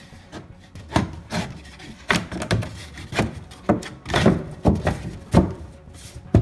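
Wooden knocks and thuds on timber staircase parts, about a dozen at uneven intervals, with the loudest near the end.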